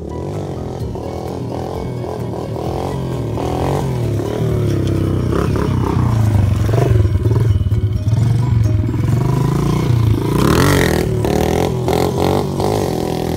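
Pit bike engine revving up and down as the bike rides toward the microphone, growing louder as it nears and loudest in the second half.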